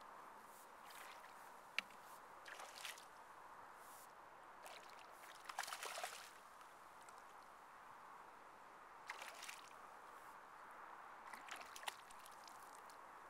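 A hooked carp splashing at the water's surface as it fights on the line, in several short bursts with the loudest about halfway through, over a faint steady hiss.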